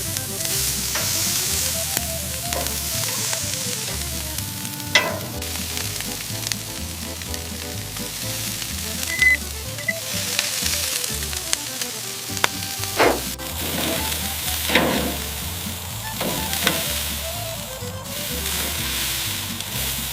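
Food sizzling steadily on high heat, with a few sharp clicks, over background music with a melody and bass.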